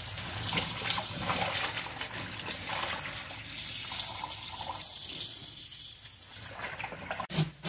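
Kitchen faucet running onto bitter leaves in a basin of water in a stainless steel sink, with splashing as the leaves are rinsed and handled. A couple of short sharp knocks near the end.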